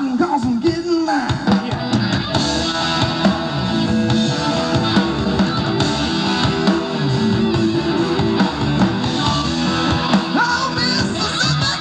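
Live rock band playing through amplifiers: guitars and a drum kit going steadily.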